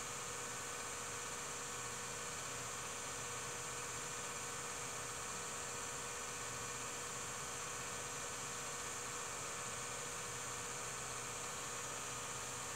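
Steady electrical hum and hiss with a few faint constant tones and no sound from the scene itself: the noise floor of a transferred silent home movie.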